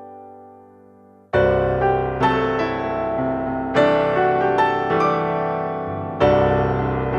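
Piano background music. A held chord fades away, then about a second in a loud new chord comes in with a melody of struck notes, and another strong chord enters near the end.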